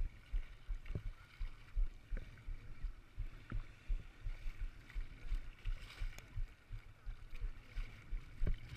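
Seawater lapping and sloshing against a boogie board with the camera mounted on it at water level, making irregular low thumps several times a second with a few sharper splashes, plus some wind on the microphone.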